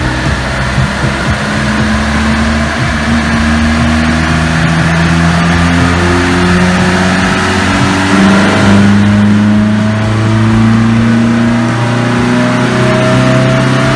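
Car engines running, their pitch shifting and rising slowly in places.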